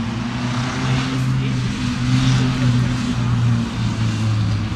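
Stock Volvo 245 DL engine driven hard on an autocross course, a steady drone that shifts a little up and down in pitch.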